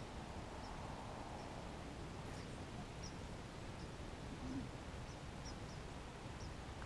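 Quiet outdoor ambience: a low, steady background noise with faint, short, high bird chirps scattered through it, several each second or so.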